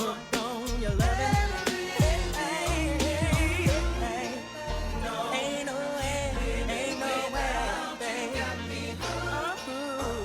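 Music: a song with a singer's voice over bass and drums.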